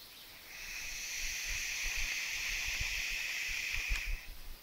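Electronic cigarette (box-mod vape) coil sizzling steadily for about three and a half seconds while it is drawn on, ending with a small click near the end, with a few low handling bumps.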